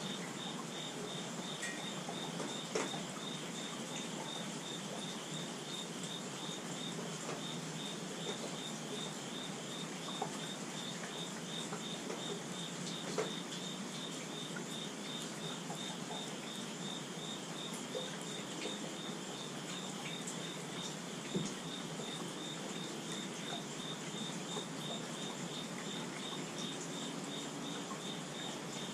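Steady rain falling on a wooden deck and potted plants, with a few louder drops landing. An insect chirps throughout in a thin, high, even pulse, about two chirps a second.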